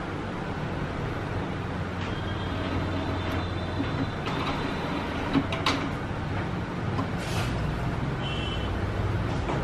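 Epson L805 printer running its power-on initialisation: a steady low mechanical hum, with a few sharp clicks about five and a half seconds in.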